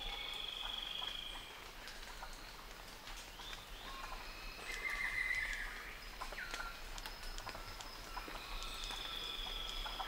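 Tropical rainforest ambience: birds and insects calling, with a high trill at the start and again near the end, a louder buzzy call about halfway through, and scattered short chirps and whistles.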